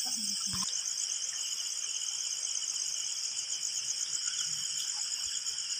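Chorus of night insects, such as crickets: a steady high-pitched shrill with a fast, even pulsing trill.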